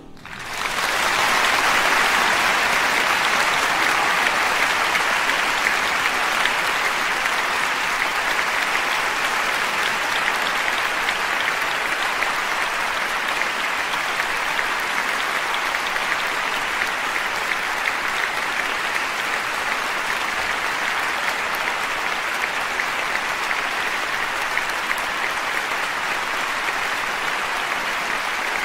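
Large audience applauding, the clapping swelling up within the first second and then holding steady.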